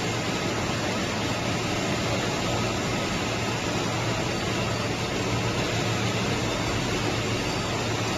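Steady, even machine noise of a running PET strap production line, with a low hum underneath.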